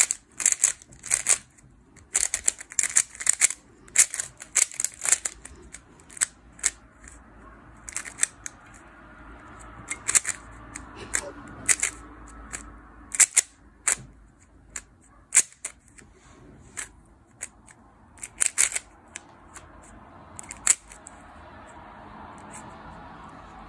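Yulong V2 Magnetic stickerless speedcube being solved by hand: its plastic layers turn in quick runs of sharp clicks and clacks, densely packed for the first five seconds or so, then in sparser groups.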